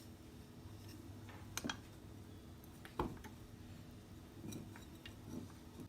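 A few light clicks and knocks over a faint steady hum. The loudest is a single sharp knock about three seconds in.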